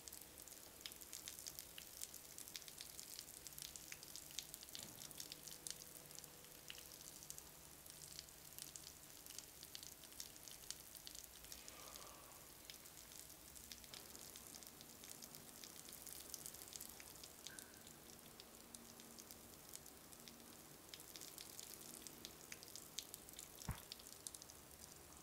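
Near silence: faint crackling hiss of room tone, with one sharp click near the end.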